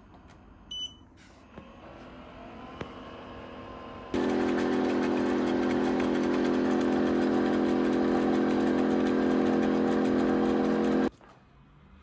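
Roidmi Eva robot vacuum's self-cleaning base station running a manual mop-cleaning cycle: a short electronic beep, then a quieter motor sound building, then from about four seconds in a loud, steady motor hum that cuts off suddenly about eleven seconds in as the cleaning finishes.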